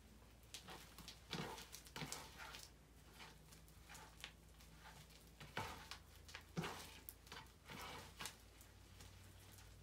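Homemade glitter slime being kneaded and stretched by hand, giving faint sticky clicks and squelches at irregular moments.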